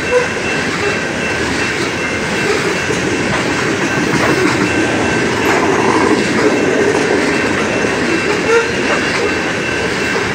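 Coal gondola cars of a freight train rolling past close by: a steady rumble and clatter of steel wheels over the rails. A faint, steady, high wheel squeal runs through it.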